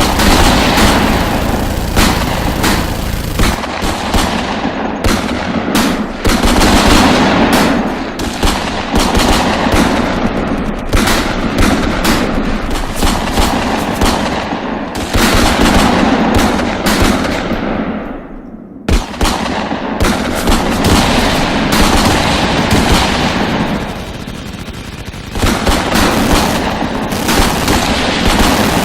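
Heavy gunfire sound effects: near-continuous rapid machine-gun fire mixed with single shots. It eases briefly about two-thirds of the way through, breaks off with one sharp shot, then picks up again, easing once more shortly after before resuming.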